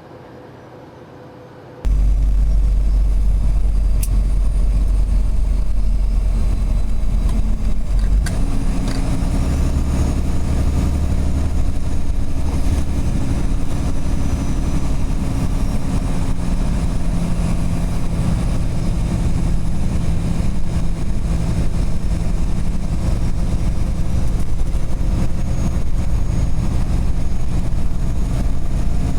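Semi-truck's diesel engine and road noise heard in the cab while driving: a loud, steady low drone. It comes in suddenly about two seconds in, after a quieter start, and its pitch steps up about eight seconds in.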